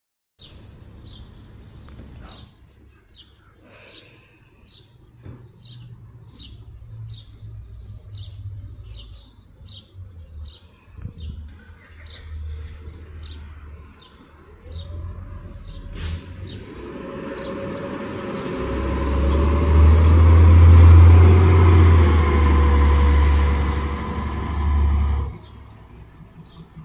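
A bird chirps over and over, about one to two chirps a second, against a faint low traffic rumble. A transit bus then approaches with a rising engine whine and passes close by with a loud engine rumble and road noise, which cuts off suddenly near the end.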